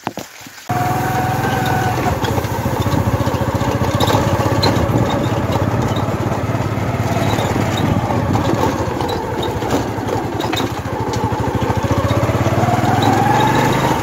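Small motorcycle engine running under way on a dirt track, starting abruptly about a second in; its pitch sags in the middle and climbs again near the end as the revs rise.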